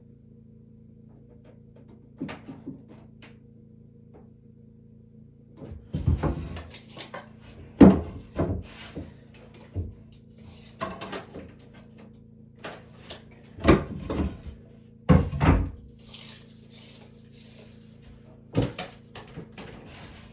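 Irregular wooden knocks and clunks from woodwork on cabinets and fittings, with a few louder thumps in the middle and a brief hiss near the end, over a steady low hum.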